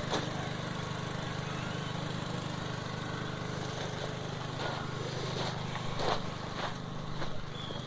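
Steady low motor hum, with a few faint clicks.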